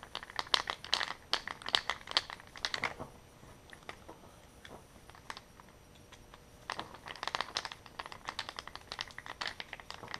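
Two small screws being driven into a plastic cable-collector housing with a screwdriver: two separate runs of rapid small clicks, one for each screw.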